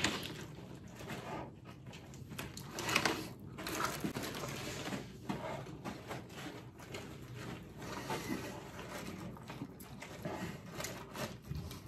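Eating and handling noises at close range: a fry being chewed and a paper takeout box being handled, as irregular soft clicks and rustles, a little louder around three and four seconds in.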